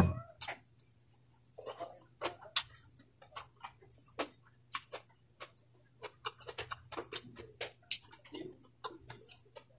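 Close-miked mukbang eating sounds: an irregular run of short wet clicks from chewing and lip smacking, with a sharp knock right at the start. A faint steady low hum sits underneath.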